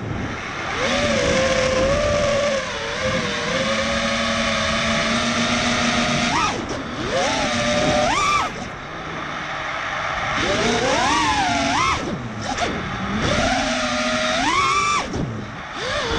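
Brushless motors and propellers of a 5-inch FPV quadcopter whining in flight, the pitch swooping up and down sharply with each throttle punch, over a rush of air noise.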